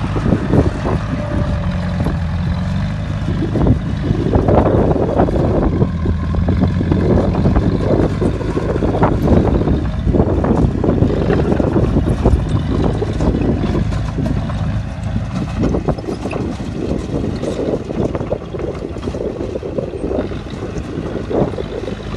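Bulldozer's diesel engine running under load while pushing dirt, with irregular surges of louder rumble.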